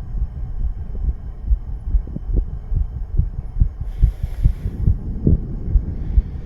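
A man's heartbeat picked up close to the chest, a fast run of short low thumps. A brief hiss comes in about four seconds in.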